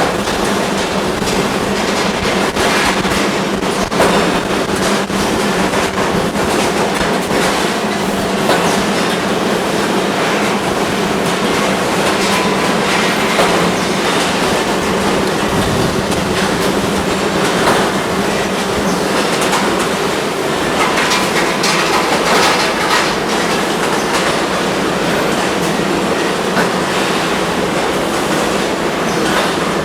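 Automatic brass hot-forging machines running in the forging shop: a steady machine hum with frequent, irregular metallic clanks and knocks.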